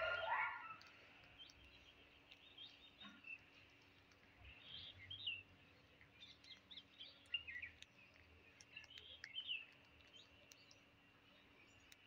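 Faint bird chirps: short high calls scattered every second or so, with one louder, lower call right at the start.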